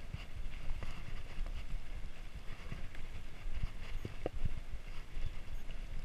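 Mountain bike rolling over a dirt singletrack trail: a low rumble from the tyres and irregular knocks and rattles from the bike as it goes over bumps, with a few sharper knocks about four seconds in.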